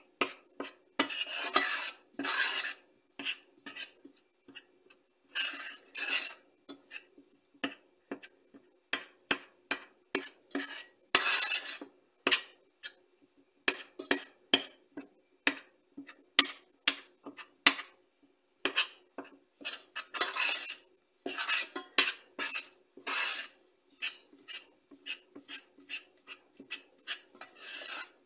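Metal spoon stirring butter and flour into a paste in a stainless steel pot, scraping and clinking against the pot's sides and bottom in irregular taps, with a longer scrape every few seconds.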